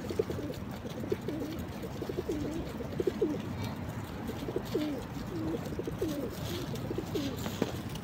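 A flock of feral pigeons cooing over and over, a string of low, wavering coos one after another, over a steady background noise.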